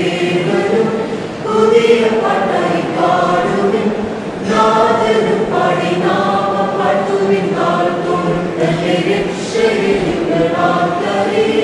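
A mixed youth choir of young women and men singing a Malayalam Christian song together, in continuous phrases with short breaths between them.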